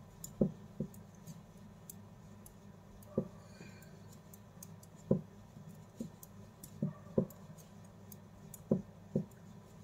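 Metal knitting needles clicking against each other as a row of purl stitches is worked: about eight sharp, short clicks at irregular intervals over a faint, steady low hum.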